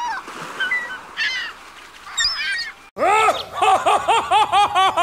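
Large gull giving its long call: a loud, rapid run of arched yelping calls, about five a second, that starts suddenly about three seconds in. Before it come fainter scattered calls.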